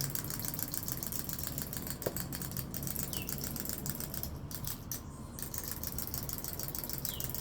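Wind-up toy's clockwork spring motor running down as the toy moves along, a rapid, even clicking.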